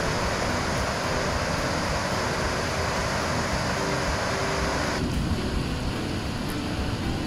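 Waterfall cascading down a rocky hillside: a steady rush of falling water, a little duller from about five seconds in.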